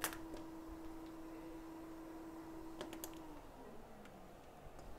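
Faint workbench sounds: a few light clicks, with a steady hum that stops a little over three seconds in.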